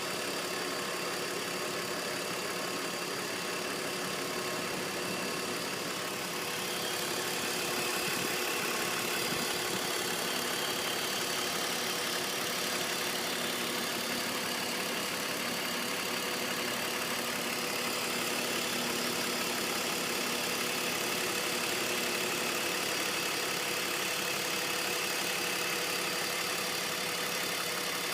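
BMW 330Ci's M54 3.0-litre straight-six engine idling steadily, growing slightly louder about seven seconds in.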